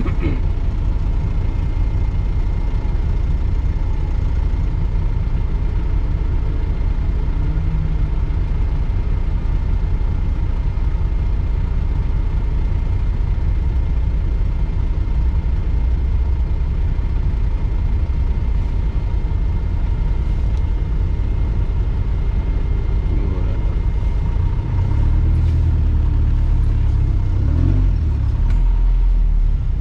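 Off-road 4x4's engine running at low revs, a steady low rumble, getting louder near the end as the vehicle creeps forward on the muddy track.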